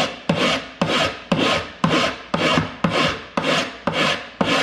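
Large hand file rasping across a soldered metal piece in steady push strokes, about two a second, each stroke starting sharply and fading away. The file cuts on the push and is lifted on the return, grinding down excess solder and metal.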